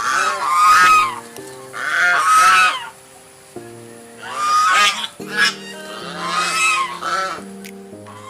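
An animal calling out loudly, about five calls one to two seconds apart, over steady background music.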